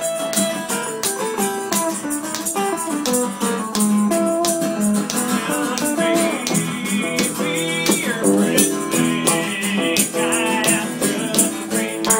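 Guitar playing a bluesy bluegrass tune, with hand percussion keeping a steady rattling beat and wavering high notes about halfway through.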